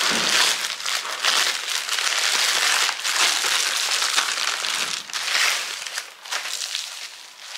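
Crinkling and rustling of parcel wrapping being pulled open and unwrapped by hand, a dense, uneven crackle that thins to a few separate rustles near the end.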